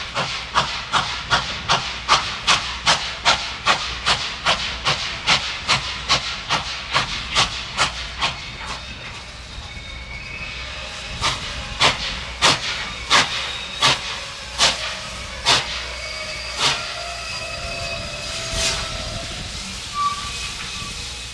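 Norfolk & Western 611, a J-class 4-8-4 steam locomotive, working a train: sharp exhaust chuffs about four a second over a steady hiss. After about eight seconds they ease into slower, uneven beats.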